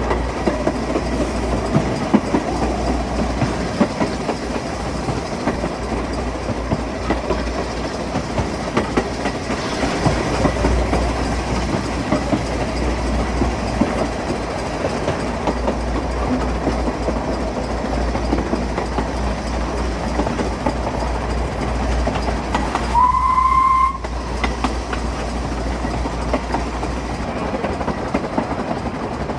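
Narrow-gauge steam locomotive Welsh Pony running, heard from its tender, with wheels clattering over the rail joints. About three-quarters of the way through, a single steady whistle blast of about a second is the loudest sound.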